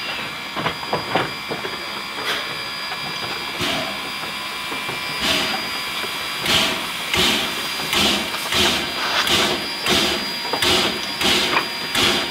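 Heisler geared steam locomotive getting under way. A few clanks come first, then exhaust chuffs start about five seconds in and quicken to roughly two a second by the end, over a steady high whine.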